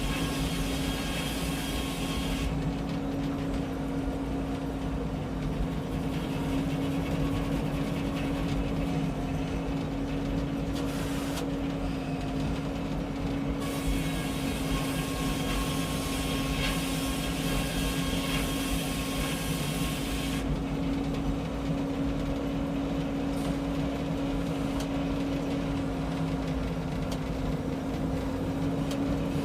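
Frick 01-C circular sawmill running steadily, its power unit holding an even drone at constant speed. A higher hiss comes and goes over it at the start and again from about halfway through.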